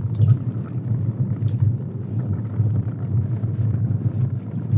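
Wind buffeting the microphone as a steady, fluttering low rumble, with a few faint clicks as clams go into a pot of water.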